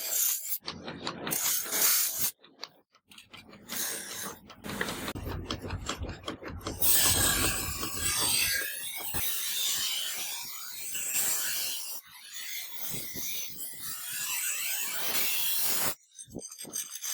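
Rasping and rubbing of a tool working a knife workpiece, in several stretches of a few seconds each with brief breaks between them.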